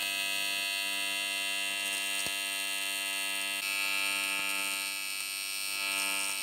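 AC TIG welding arc from a CanaWeld 201 Pulse D buzzing steadily while tacking aluminum, the hum set by the machine's AC frequency of about 100 hertz. About three and a half seconds in the buzz brightens and grows a little louder.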